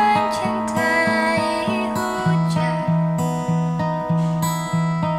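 Acoustic guitar playing a slow folk song, its low notes struck in an even, repeating rhythm under sustained chords.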